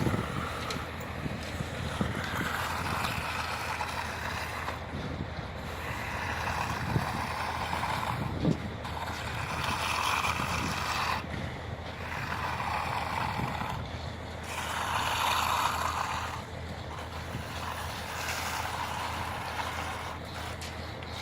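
Stiff broom being dragged across fresh concrete to give it a brushed finish: repeated scraping swishes, each about two seconds long and coming about every three seconds.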